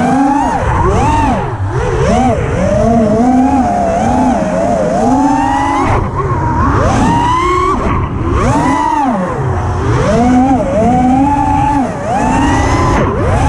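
FPV racing quadcopter's four brushless motors (TBS Mr. Steele Silk) spinning 5-inch props: a loud whine that swoops up and down in pitch every second or so as the throttle is punched and chopped through the flight.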